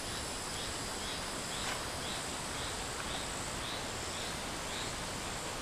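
Outdoor ambience of insects droning steadily in high, even tones, with a short chirp repeated about twice a second and a single faint click about a third of the way through.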